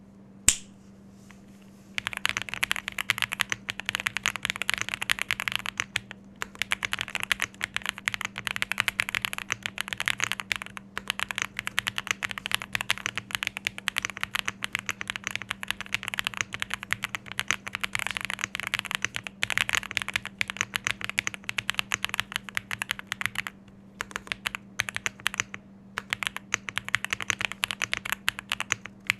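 Fast typing on a Jris 65 mechanical keyboard with Akko Cream Yellow V3 Pro linear switches: a dense, continuous stream of keystrokes broken by a few brief pauses. A single sharp click comes about half a second in, and the typing starts about two seconds in.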